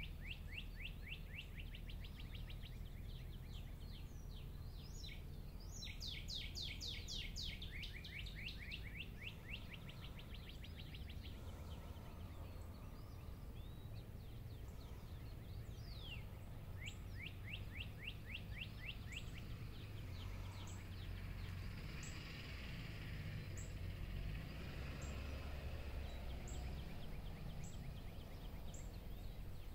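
A songbird sings a fast trill of rapid repeated notes three times, each lasting two to three seconds, over a steady low background rumble. In the second half, a thin high note repeats about once a second.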